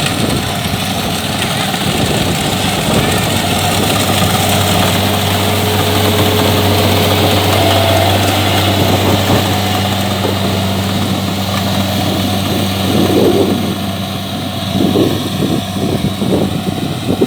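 Kubota DC-70 rice combine harvester's diesel engine running steadily under a broad hiss, easing off a little near the end.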